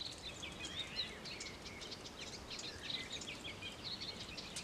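Wild songbirds singing: quick, high chirping and twittering notes, over a faint low outdoor background noise.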